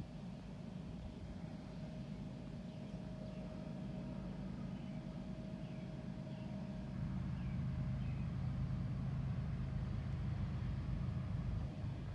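Distant diesel locomotives of an approaching BNSF freight train, a low steady rumble that grows louder about seven seconds in.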